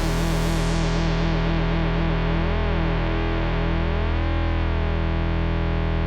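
Bass guitar through a Dunlop MXR MB301 Bass Synth pedal: a single held synth-bass note ringing on steadily, its brightness falling away in the first second, with a slow sweeping swirl moving through its overtones partway through.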